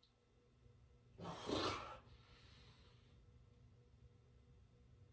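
A person's hard exhale about a second in, followed by softer breathing, from the effort of pushing up into a full back bend.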